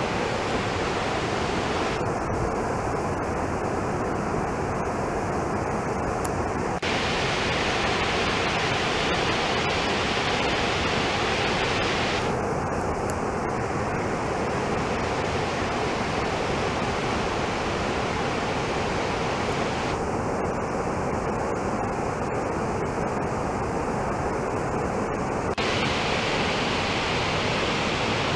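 Mountain creek rushing over cascades and rocks in a narrow canyon, heard from above as a steady noise of whitewater.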